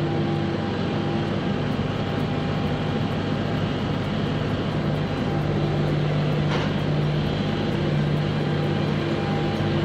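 Tractor engine running with a steady drone that drops and picks up again in the middle. A brief sharp click about six and a half seconds in.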